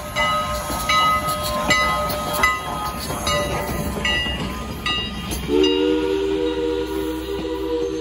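A passing steam-hauled passenger train, its wheels clicking over rail joints about every 0.8 s as the tender and coaches roll by. About five and a half seconds in, steam locomotive No. 89's whistle starts and holds a steady chord of several notes.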